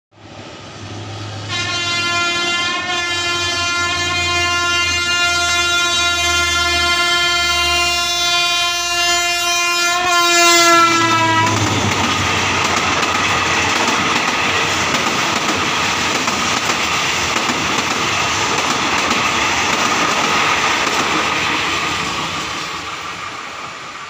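An Alsthom ALD diesel-electric locomotive sounds its horn in one long blast of about ten seconds, its pitch dropping slightly as it passes. Then the passenger coaches roll by on the rails, fading away near the end.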